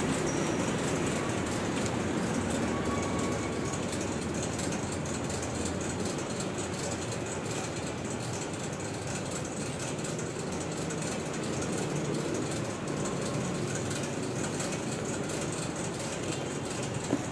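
Steady mechanical noise of a belt conveyor and plant machinery running in a plastic-bag printing works, even and unchanging, with one short click near the end.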